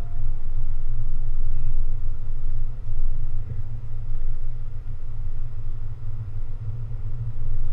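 Car driving at a steady speed, heard from inside the cabin: a steady low road and engine rumble with a light hiss of tyre and wind noise over it.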